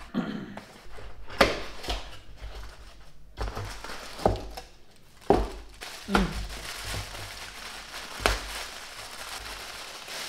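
Unpacking a small cardboard box: cardboard flaps and a plastic-bagged item being handled, the plastic crinkling throughout, with about five sharp knocks and taps as the box and its contents are moved.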